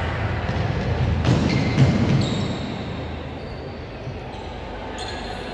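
Futsal ball kicked and thudding on a wooden indoor court, two sharp hits about a second and a half in, with a booming echo of the big hall behind them. A few brief high-pitched squeaks follow.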